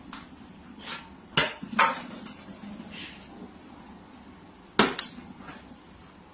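A few separate sharp knocks or clatters, two close together about a second and a half in and another near the end, with quiet between them.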